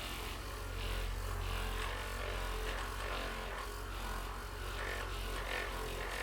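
Handheld electric massager running with a steady low motor hum, worked over the patient's body to loosen the muscles before an adjustment.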